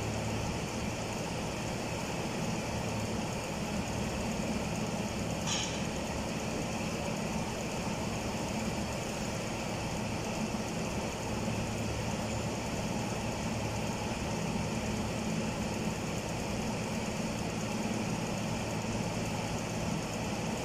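Steady hum of an engine or motor running without change, with one short sharp click about five and a half seconds in.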